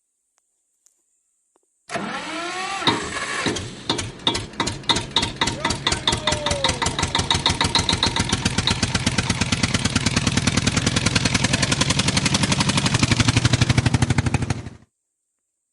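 Tractor engine starting: it turns over unevenly for a couple of seconds, catches, and runs with regular, quickening firing pulses that settle into a steady run. It cuts off abruptly near the end.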